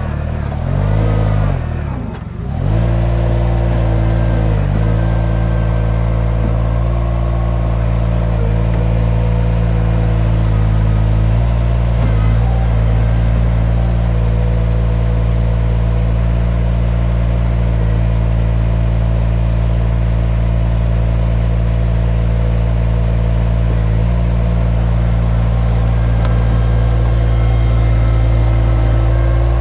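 Mini skid steer's engine running steadily at high throttle while the machine works its bucket. The engine pitch drops sharply twice in the first couple of seconds before recovering and holding steady.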